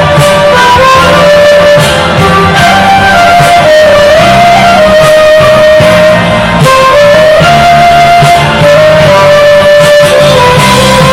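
Instrumental break in a rock song: a lead guitar plays a slow melody of long held notes, sliding between some of them, over the band's steady backing.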